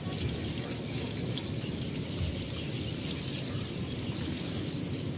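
Water sprinkling steadily from a plastic gardening bottle's shower head onto rubber-coated dumbbells, rinsing off the soapy vinegar wash.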